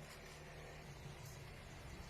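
A faint, steady low engine rumble.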